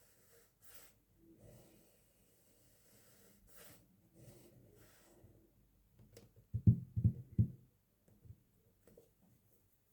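Soft rustling handling sounds, then a quick run of three or four dull knocks about seven seconds in.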